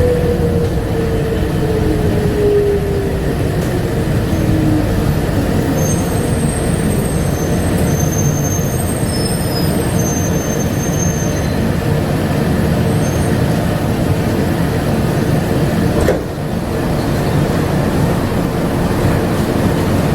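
Bombardier APM100 rubber-tyred people-mover train running along its guideway. Its motor whine falls in pitch over the first few seconds, faint high squeaks come and go in the middle, and there is a sharp knock about sixteen seconds in.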